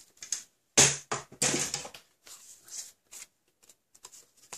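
Scoring tool drawn along cardstock in the grooves of a scoring board: a loud scratchy stroke about a second in, a longer one just after, then fainter scrapes and small clicks as the card is handled.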